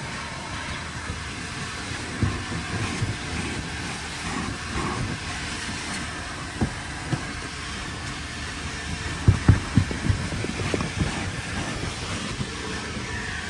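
Car-wash vacuum running steadily with a continuous rushing hiss, and a run of low thumps and knocks about two-thirds of the way through as the interior is cleaned.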